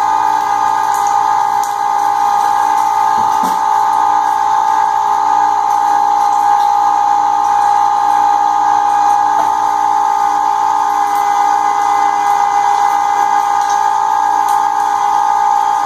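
Cabela's half-horsepower Carnivore electric meat grinder running steadily, an even, loud motor whine that holds one pitch throughout.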